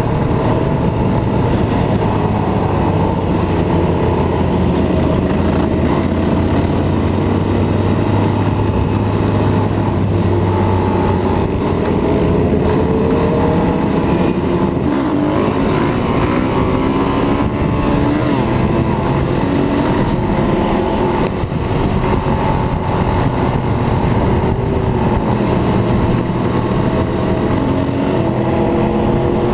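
Motorcycle engine running under way, heard from the rider's own bike. The note holds steady at first, then rises and falls in pitch with throttle and gear changes partway through.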